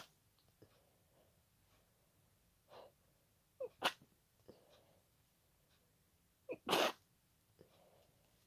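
A person sneezing wet, congested sneezes, two full ones about four and seven seconds in, the second longer. Each comes right after a short catch of breath, with faint sniffs and breaths between. Typical allergy sneezing, which the sneezer puts down to pollen.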